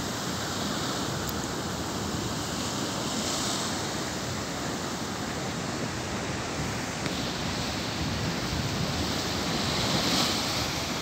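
Rough sea breaking against a stone shore ledge and washing across it: a steady rush of surf that swells as waves break, loudest when a wave crashes near the end.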